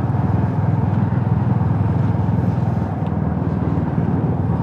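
Motorcycle engine running steadily while riding, with a low, even rumble that holds its pitch.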